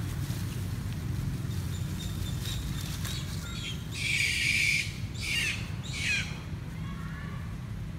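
Long-tailed macaques screeching: one loud harsh screech about four seconds in, then two short calls falling in pitch and a fainter squeal near the end, over a steady low rumble.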